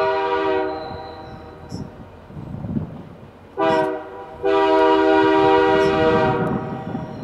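A Canadian National freight locomotive's air horn blowing for a grade crossing. A long blast ends about half a second in, a short blast comes near the middle, then a long blast of about two seconds: the close of the long-long-short-long crossing signal. Between the blasts the locomotive and its wheels rumble on the rails.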